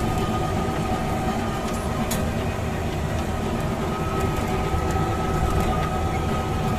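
Safari-ride tram running steadily: a continuous low rumble with a thin, steady whine over it.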